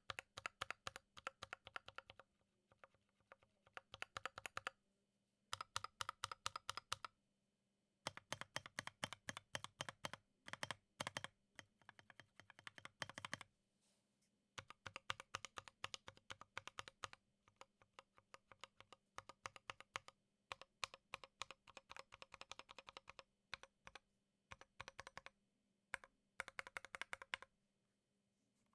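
Typing on a Drop Alt mechanical keyboard with Gateron Ink Black linear switches and OSA-profile keycaps: runs of rapid keystrokes, broken by short pauses every few seconds.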